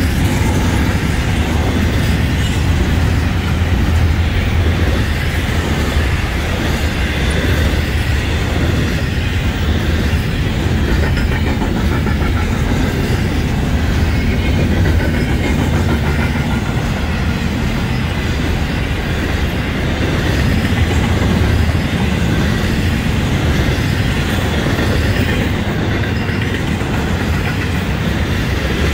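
Florida East Coast Railway intermodal freight train passing: double-stack container well cars and trailer flatcars rolling by with a steady, heavy rumble of steel wheels on the rails.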